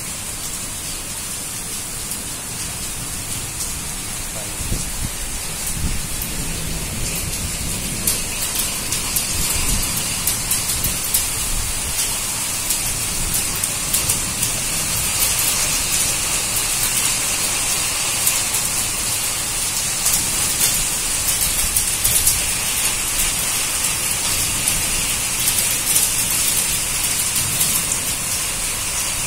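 Heavy rain with hail pouring down: a steady hiss, with many sharp ticks of hailstones striking hard surfaces that thicken from about eight seconds in.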